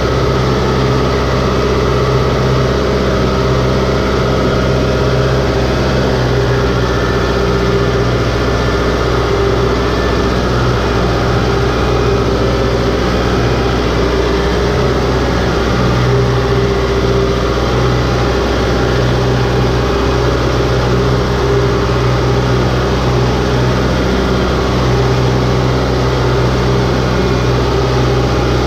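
Compact tractor's diesel engine running steadily at an even speed, heard close up from the driver's seat. The wheels churn through paddy mud and water.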